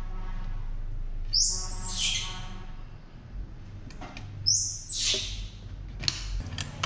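Baby monkey giving two loud, high-pitched squealing calls, each sliding down in pitch, with fainter pitched whimpers before them. A few sharp clicks near the end, as the lid goes back on a metal formula can.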